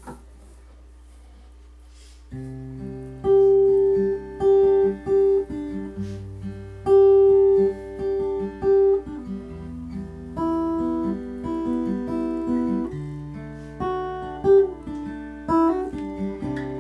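Acoustic guitar picking a slow intro of single, ringing notes and arpeggios, starting about two seconds in, over a steady low hum.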